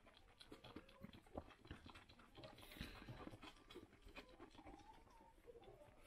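Faint, irregular sucking and smacking clicks of a lamb feeding from a milk bottle's teat.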